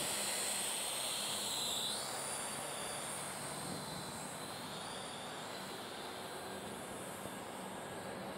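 Parrot AR.Drone 2.0 quadcopter's electric motors and propellers whining in flight as it moves away. The high whine shifts in pitch about two seconds in and then grows slightly fainter.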